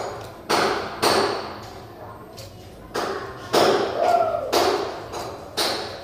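A series of sharp knocks and thuds, about eight of them at uneven intervals, each with a short echoing decay.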